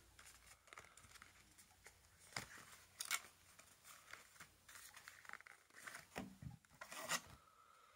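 Faint, scattered crinkles and clicks of a clear plastic blister pack and its cardboard card being handled as a toy monster truck is pulled out.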